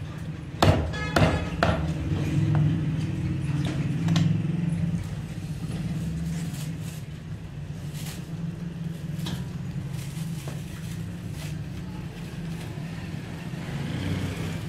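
Three cleaver chops on a wooden butcher's block about a second in, over a steady low hum. Later come light crackles of a plastic bag as the cut chicken is packed into it.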